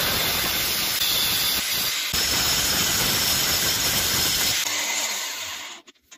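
Bosch GWS angle grinder with its abrasive disc grinding the tip of a 12 mm steel twist drill bit to sharpen it: a steady, harsh grinding noise with a brief break about two seconds in. It fades out about five seconds in, followed by a few light clicks.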